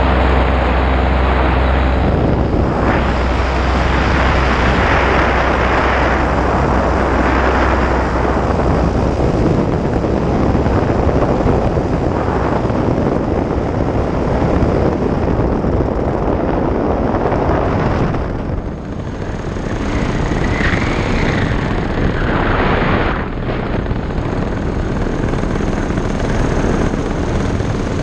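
Paramotor flight: the engine's steady note is heard only in the first couple of seconds, and then loud wind buffeting the microphone takes over and covers it.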